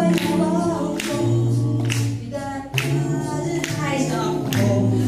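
A cappella vocal ensemble singing in several-part harmony, with sharp percussive hits about once a second keeping a beat.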